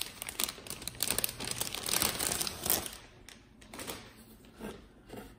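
Metallic anti-static bag crinkling and crackling as a motherboard is slid out of it and handled. The rustling is dense for about three seconds, then thins to a few short crinkles.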